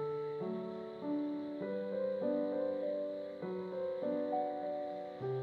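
Slow, gentle background keyboard music: held notes and chords that change about once a second.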